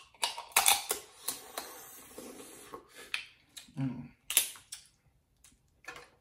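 Snow crab leg shell cracking and snapping as it is bitten and broken open by hand, close up: a quick run of sharp clicks and crunches, then one loud crack about four and a half seconds in. A short hum comes just before the crack.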